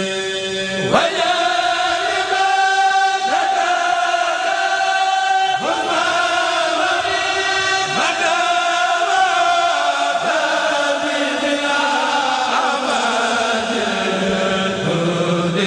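Kourel of men chanting a Mouride khassida together in long, held melodic lines, with a rising swoop opening a new phrase about every two and a half seconds.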